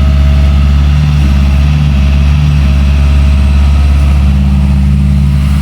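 Excavator's diesel engine idling steadily, a deep, even hum with no breaks or changes in pitch.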